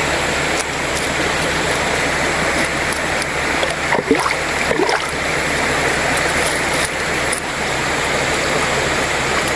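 Mountain river water rushing steadily over rocks, with a few short gurgles about four to five seconds in.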